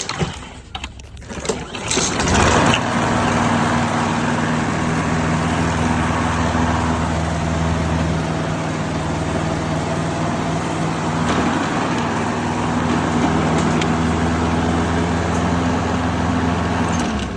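Craftsman 175cc walk-behind gas lawn mower engine starting: a few clatters, then it catches about two seconds in and runs steadily.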